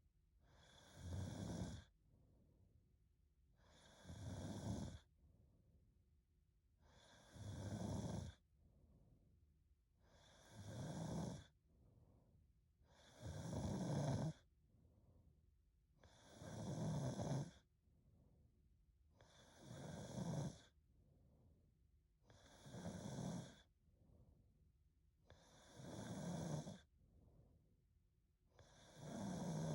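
A young woman snoring in her sleep: about ten regular snores, one every three seconds or so, each lasting about a second, with softer breaths between them.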